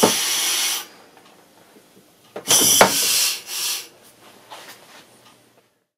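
Rock-drill-type drill piercing ram from a Climax drill sharpener being run on compressed air. A loud hiss of air cuts off with a sharp clack just under a second in. A second short burst of air with a sharp knock comes about halfway through, followed by a few faint clicks.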